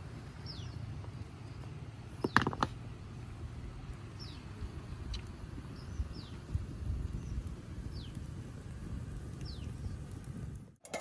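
A bird repeating a short, high, falling chirp every second or two over a low steady rumble, with a couple of sharp knocks about two seconds in.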